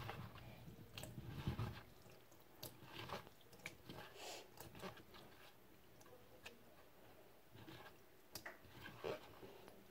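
Faint scattered clicks, taps and rustles in a small room, with a few louder low thumps in the first two seconds.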